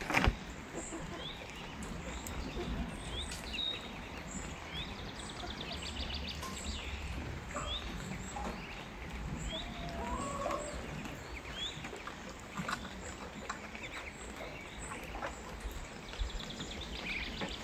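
Outdoor ambience of a duck pen: scattered short high chirps and peeps, a couple of quick trills, and a wavering call from the ducks about ten seconds in, over a low steady rumble.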